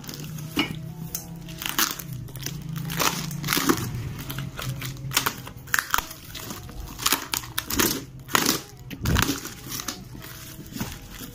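Corrugated cardboard box being torn open by hand, with irregular ripping and crumpling bursts as flaps and pieces are pulled away. Faint background music plays under it.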